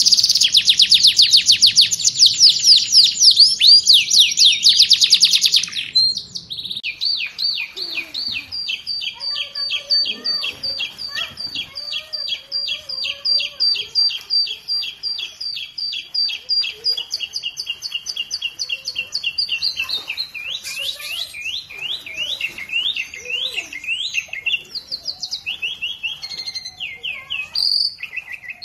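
Songbird singing: a loud, fast run of high chirps for about six seconds, then a quieter, rapid trill of repeated sweeping notes that breaks into varied chirps and whistles after about twenty seconds.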